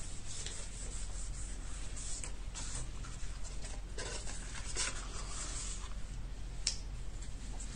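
Soft paper rubbing and rustling as a sheet of patterned paper is glued and smoothed by hand onto the box lid, in a series of short, irregular scrapes.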